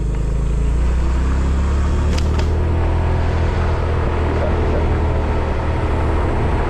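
Motorcycle engine running steadily under a rider at cruising speed, with a brief click about two seconds in.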